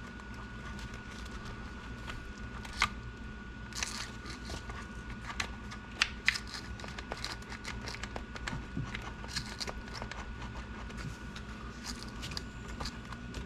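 Scattered light clicks and small rattles of plastic and metal RC car parts being handled during disassembly, over a faint steady high-pitched hum.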